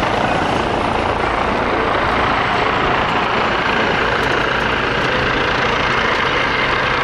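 Eurocopter EC135 helicopter's rotor and twin turbine engines running as it flies a slow approach, a steady dense rush of noise with a low hum joining about four seconds in.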